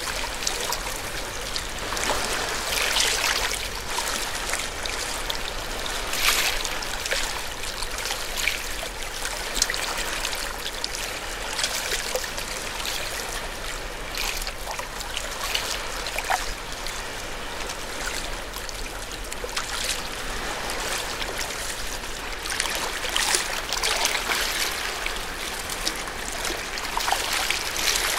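Seawater washing and trickling among shoreline rocks, a steady rushing hiss with brighter splashing surges every few seconds.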